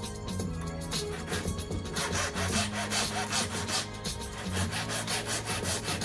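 Rapid back-and-forth rasping strokes of a hand file, starting about two seconds in, over music playing in the background.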